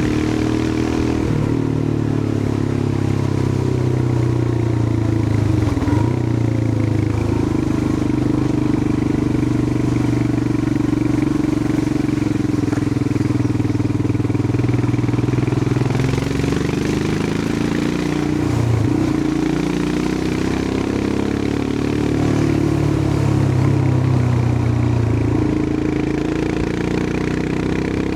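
Royal Enfield Himalayan 411's air-cooled single-cylinder engine running under way on the road. The engine note rises and falls several times, with a brief dip about two-thirds of the way through.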